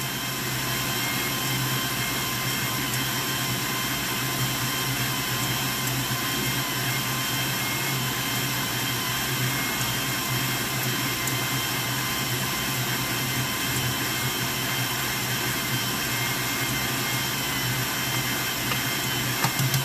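Electric stand mixer running steadily at speed, its wire balloon whisk beating foamy egg whites in a stainless steel bowl: a constant motor whir and hum.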